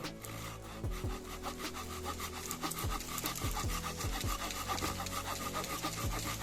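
Parkside garden hand saw cutting through a wooden branch in repeated back-and-forth strokes. Background music with low bass notes plays underneath.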